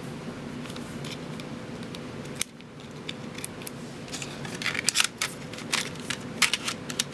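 Small plastic clicks and taps from a Samsung Galaxy S2's parts being fitted back together, over a steady low hum. There is one sharp click about two and a half seconds in, then a quick run of clicks in the second half.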